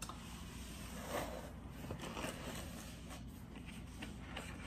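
Faint rustling and scraping of packaging being handled while a microphone is unboxed, with a few soft scrapes about a second and about two seconds in, over a steady low hum.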